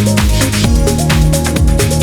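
Electronic background music with a fast, steady beat and a deep bass line.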